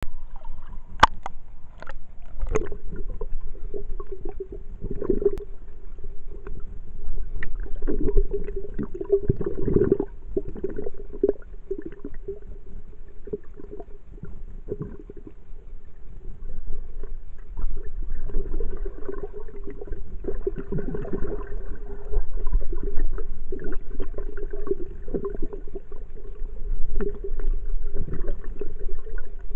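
Muffled underwater water sound, with sloshing and gurgling from a camera moving at and below the sea surface. A steady low hum runs under it, and there are a few sharp knocks in the first seconds.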